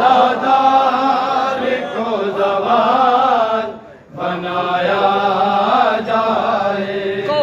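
Men chanting a Shia noha (mourning lament) without instruments, in long, wavering held notes, with a short break about four seconds in.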